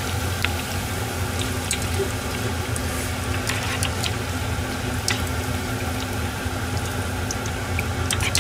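Chicken karaage deep-frying in a pot of hot oil: a steady sizzle with scattered crackles and pops.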